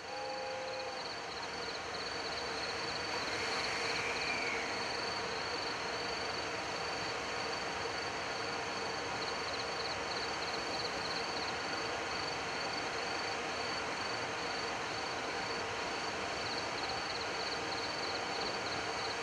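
Crickets chirping in a rapid pulsing trill over the steady hum and rush of a JR Freight EF210 electric locomotive waiting at the platform. The last note of a train horn cuts off about a second in.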